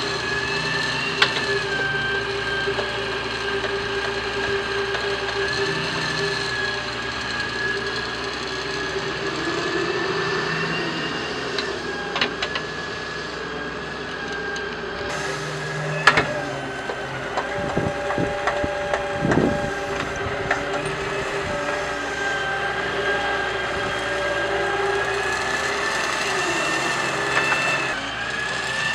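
Doosan 140WV wheeled excavator working, its engine and hydraulics running steadily with a high whine. The bucket digging into soil and stones gives occasional sharp knocks and scrapes, several close together past the middle.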